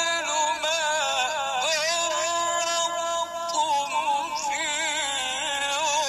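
A man's voice reciting the Quran in the melodic, chanted style, with long held notes ornamented by quavering turns.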